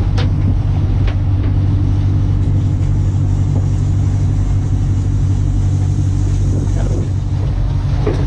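Sport-fishing boat's engine running steadily under way: a loud, even low drone, with a hiss of water and wind over it.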